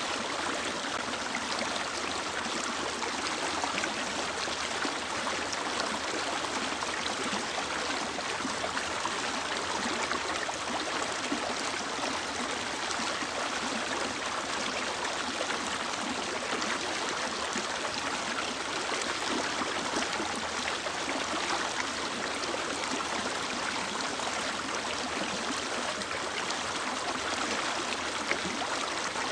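Mountain stream flowing over rocks: a steady rush of running water.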